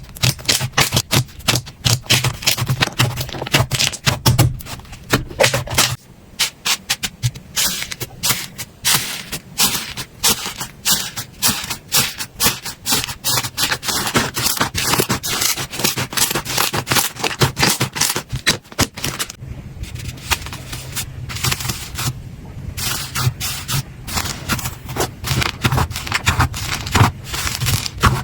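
Slime being squeezed and worked by hand: a dense, fast stream of sticky clicks and pops.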